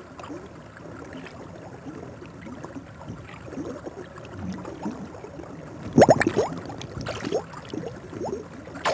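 Water sloshing and splashing as a young Japanese macaque (snow monkey) paddles in a hot-spring pool, with a louder burst of splashing about six seconds in and another near the end.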